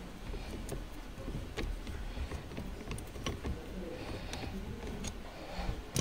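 Scattered light metal clicks and knocks of a socket and extension bar turning off a steering wheel's centre nut, at uneven intervals, over a steady low rumble.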